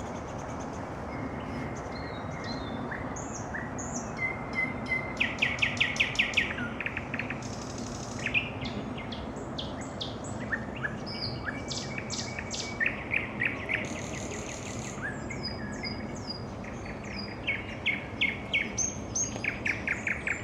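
Nightingale singing its evening song: varied phrases of clear whistles and sweeping notes alternate with rapid runs of repeated clicking notes, several a second, with the loudest runs about a quarter of the way in and again near the end. The song sits over a steady background hiss.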